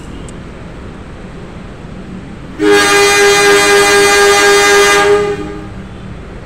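Diesel locomotive horn sounding one long, steady blast of about two and a half seconds, starting a little before three seconds in, as the train is about to be sent off. Beneath it is a low, steady rumble.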